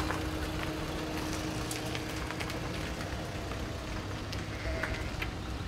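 A flock of sheep moving over grass: a dense, steady scatter of small ticks and rustles from many hooves on the turf, over a low rumble.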